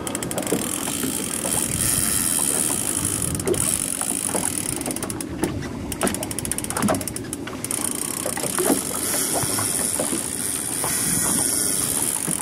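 Wind buffeting the microphone over water noise on an open boat, with a fast run of clicking from the fishing reel for a couple of seconds near the middle as the striped bass pulls against the bent rod.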